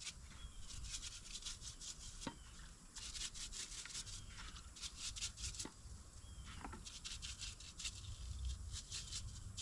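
Greasy wheel bearing parts being scrubbed clean by hand: bursts of quick rasping strokes, several a second, with short pauses between the bursts.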